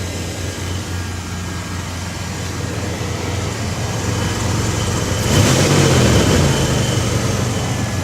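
1993 Chevy S10's 2.8 L V6 with throttle body injection idling steadily, with a louder rushing swell about five seconds in.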